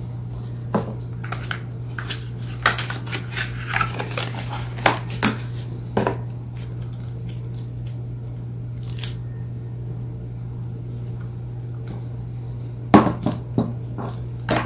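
Small drone accessories and their boxes being handled and set down: scattered light clicks and knocks, with a quick cluster of knocks near the end, over a steady low hum.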